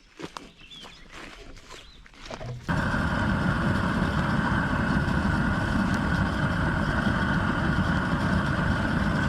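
Faint scattered clicks and knocks, then a little under three seconds in a loud, steady machine noise with one constant high tone starts abruptly and holds evenly.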